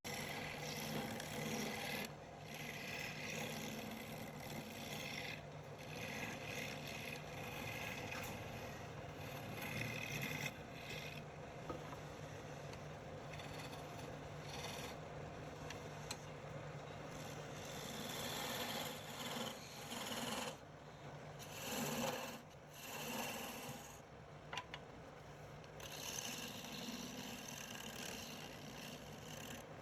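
Wood lathe running with a steady low hum, under uneven scraping and rasping as the spinning wood is worked, swelling and easing every second or two.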